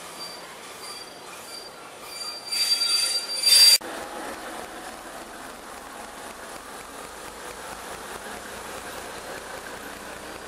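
A level-crossing warning bell dings about twice a second as the train rolls past, then the train's wheels screech loudly for about a second and the sound cuts off. After that, a class 749 'Bardotka' diesel locomotive's engine runs steadily at idle.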